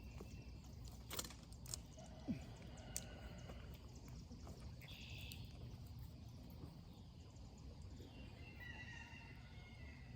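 Faint outdoor ambience: a steady low wind-like rumble, a few sharp clicks in the first three seconds, and short bird chirps about halfway through and again near the end.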